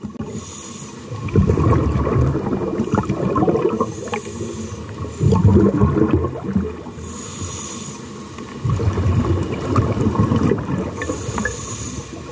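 Scuba diver breathing through a regulator underwater: a short hissing inhale, then a longer burst of bubbling exhaust, repeating every three to four seconds.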